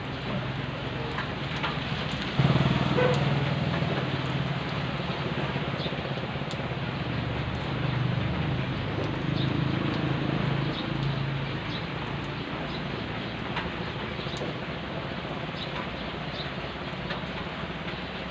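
Steady rain falling on foliage and a wet gravel road, with scattered faint drips. A low rumble sets in suddenly about two seconds in, swells again midway and fades out by about twelve seconds in.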